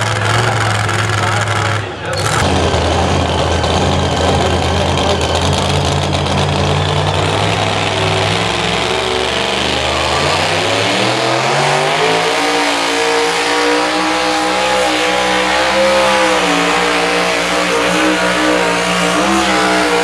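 Two-wheel drive pulling truck's engine running at low, steady revs, then revving up about ten seconds in and holding high rpm with a slightly wavering pitch as the truck pulls the sled down the track.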